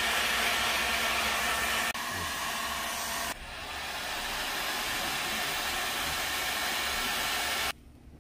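Electric heat gun blowing steadily as it heats a sticker on a rifle's receiver to loosen the adhesive; its level drops twice and it cuts off near the end.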